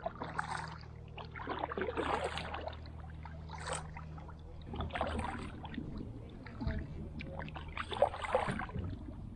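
Kayak paddle strokes: the blades dip and splash in the water about five times, a second or two apart, with water dripping off between strokes, over a steady low hum.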